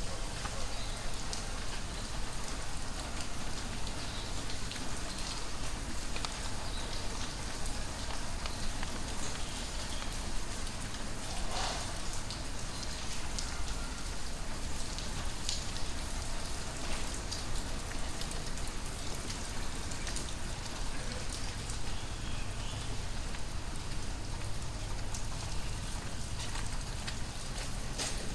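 Very heavy rain falling steadily in a thunderstorm, a dense hiss with scattered sharper drop hits.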